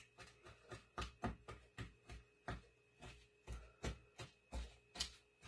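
Spatula stirring a sticky crumb mixture of pecans, brown sugar and melted butter in a mixing bowl: faint, short knocks and scrapes at an uneven pace, two or three a second.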